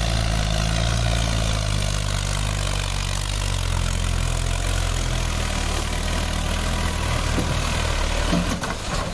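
Mahindra Arjun tractor's diesel engine running steadily as it drives through shallow floodwater, over the continuous rush and splash of water pushed aside by its front and tyres. Near the end the splashing falls away as the tractor climbs out onto dry ground.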